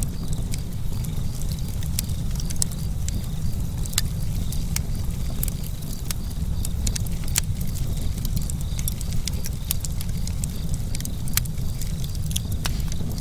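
Wood campfire burning, crackling with frequent sharp irregular pops over a steady low rumble.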